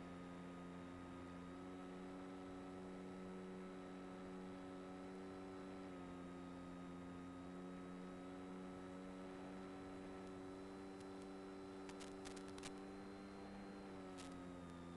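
Steady hum of an electric model plane's brushless outrunner motor and propeller, carried over the 5.8 GHz video link's audio. The pitch steps slightly up and down a few times as the throttle changes, under a light hiss, with a few short clicks near the end.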